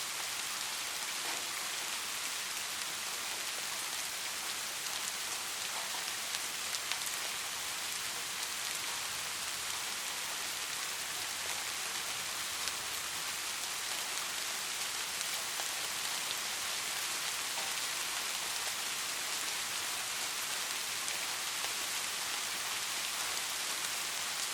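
Soft rain falling steadily, an even hiss with a few distinct drops tapping now and then.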